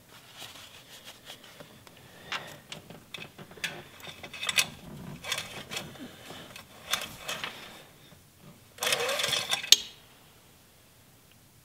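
Handling of an engine-oil dipstick: a paper towel rustling, with light clicks and scrapes as the metal dipstick is wiped, slid into its tube and drawn out again. A louder scrape of about a second near the end finishes in a sharp click.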